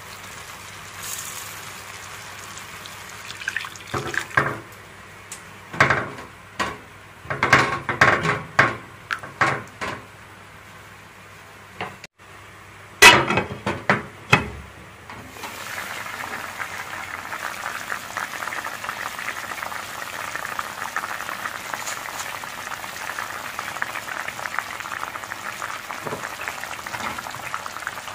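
Chicken braising in dark sauce in a wok: a run of sharp knocks and clinks of utensils against the pan, the loudest about halfway through, then a steady, dense sizzling and bubbling as the sauce simmers under a glass lid.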